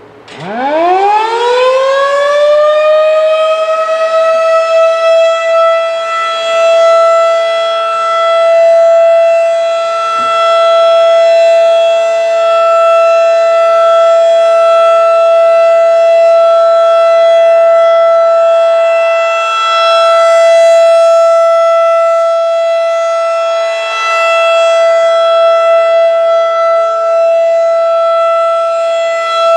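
Federal Signal 2001-DC rotating outdoor warning siren starting up: its pitch winds up from low to a steady high tone over about three seconds, then holds there as the steady alert signal of a monthly siren test. The loudness swells and dips gently as the rotating horn sweeps around.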